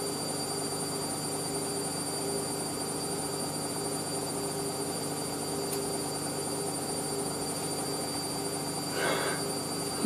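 Hoover SIX AAA160 Whisper 1600 washing machine spinning steadily at 800 rpm on its final spin, the drum motor giving a steady hum with a high whine.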